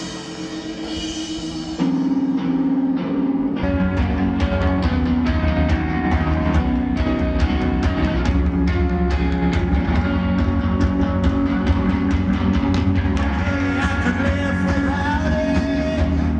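Rock band playing live with drums, bass, electric guitar and singing. It gets louder about two seconds in, and a steady drum beat with heavy bass comes in a couple of seconds later.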